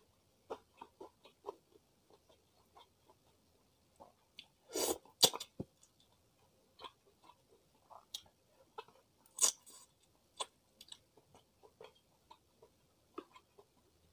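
Close-miked chewing of food with many small wet clicks, and two loud crunchy bites, about five seconds in and again about nine and a half seconds in.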